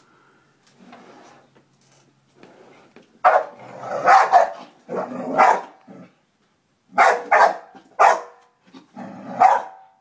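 Pet dog barking at a vacuum cleaner: a run of loud, separate barks beginning about three seconds in.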